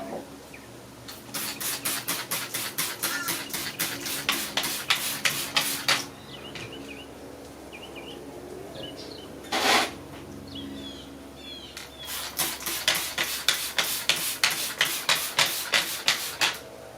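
Trigger spray bottle of soapy water squirted rapidly onto a freshly plugged riding-mower tire to check for leaks: two long runs of quick spray strokes, about four a second, with a single longer spray in between.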